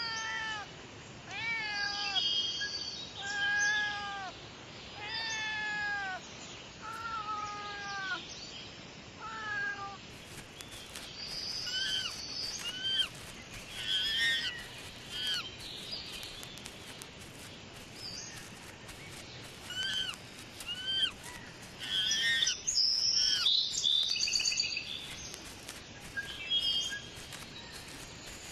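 A cat meowing repeatedly, about seven drawn-out, falling meows over the first ten seconds. After a change in the recording about ten seconds in, short high chirps and squeaks repeat through the rest.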